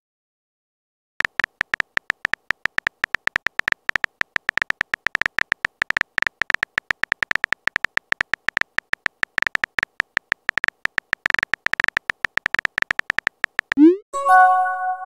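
Phone keyboard typing sounds: rapid, irregular tap clicks, each with a short beep, as a text message is typed out, starting about a second in. Near the end a quick rising swoop and a chime sound as the message is sent.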